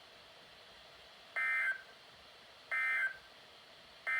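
NOAA Weather Radio SAME digital data bursts: short warbling two-tone chirps, each under half a second, about a second and a half apart. Two full bursts sound, and a third begins right at the end. The short repeated bursts after the spoken message fit the EAS end-of-message (EOM) code that closes the Required Weekly Test.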